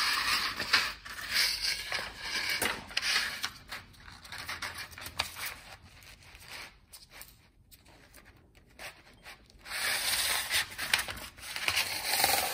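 Pleated paper filter element from a used fuel filter being pressed flat and spread out by hand, its folds crinkling and rustling in bursts. Louder in the first few seconds and again near the end, quieter in the middle.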